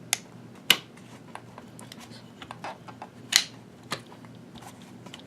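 Sharp metal clicks and light taps of an AR-15's upper and lower receivers being worked into line so the front pivot pin can be pushed through: four louder clicks spread over the few seconds with lighter ticks between.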